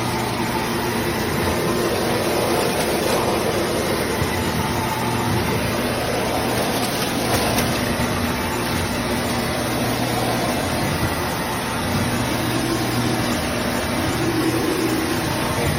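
Shark PowerDetect corded stick vacuum running steadily.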